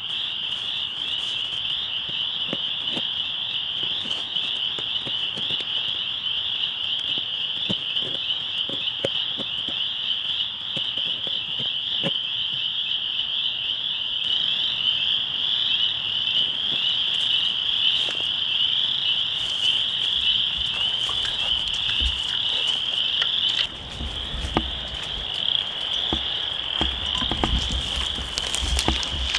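A dense chorus of frogs calling: a steady, high-pitched shimmering trill with no pause. A low rumble comes in near the end.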